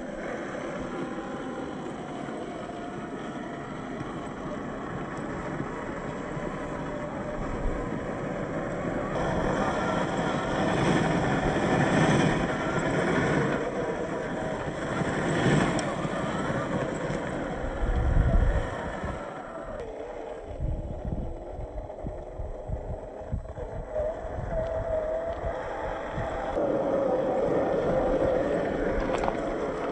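1/10 scale RC crawler (MST CFX chassis with a 27-turn brushed motor) driving over rough ground: motor and drivetrain whine rising and falling with throttle, mixed with tyres and chassis scraping over dirt and rocks. A low thump comes about two-thirds of the way through.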